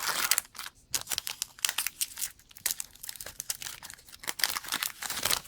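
Foil Pokémon card booster pack wrapper crinkling and tearing as it is opened by hand, a busy run of irregular crackles throughout.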